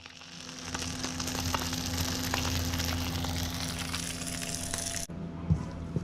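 Food sizzling in a hot frying pan, a dense steady crackle that cuts off suddenly about five seconds in.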